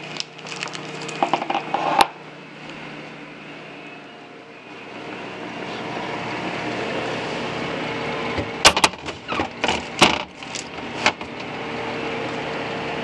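Handling noises as a plastic-wrapped glass plate is carried to a refrigerator and set on a shelf: scattered clicks and knocks, the busiest cluster coming about two-thirds of the way in, over a steady hum that grows louder about halfway through.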